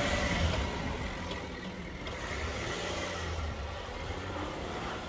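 Volkswagen Touareg SUV's engine running as it drives across wet, muddy clay ground.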